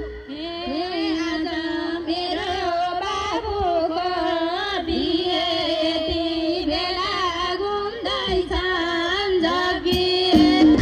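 A woman singing a slow, drawn-out melody with wavering, ornamented held notes, amplified through the stage loudspeakers with little beat behind it. A drum beat comes back in near the end.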